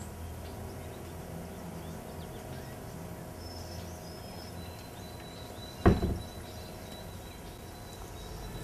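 An exterior house door shutting once with a single sharp bang, about six seconds in, over a steady low outdoor hum.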